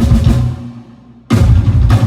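Drum kit played during a sound check: a short burst of drum hits fades out, then another burst starts sharply just past halfway. The bursts carry a deep, pitched low end.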